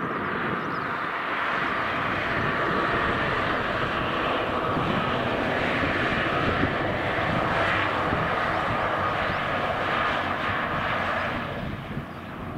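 Railway maintenance vehicle with a loading crane running along the track: a steady diesel engine drone mixed with wheel noise on the rails. It builds over the first couple of seconds and eases off near the end as it moves away.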